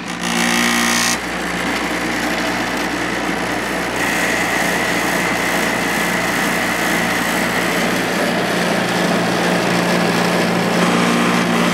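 The Copeland reciprocating compressor of a 5,000 BTU Coronado window air conditioner starting up, with a loud surge in the first second, then running steadily alongside the fan. It is running rough and vibrating a lot, as this compressor does when it first starts before smoothing out.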